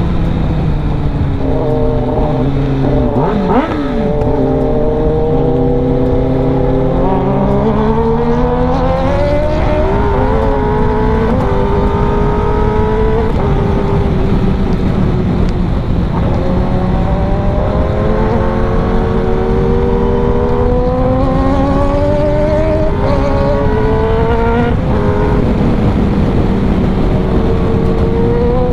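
Kawasaki ZX10R's inline-four engine under way through a full-system aftermarket exhaust, its note climbing as it accelerates and dropping back at each gear change, several times over.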